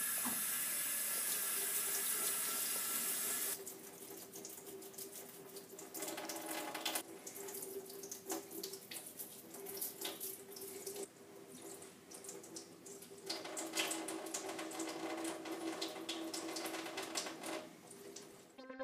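Cold water running from a kitchen tap into a stainless steel sink, a loud steady stream for the first few seconds, then quieter and uneven as it splashes over vegetables being rinsed. Short scratchy strokes of a dish brush scrubbing the vegetables under the stream.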